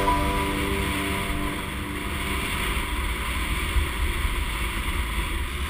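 Steady wind rush on the microphone with a low road rumble while riding a Trikke carving scooter downhill. The last held notes of a guitar song die away in the first two seconds.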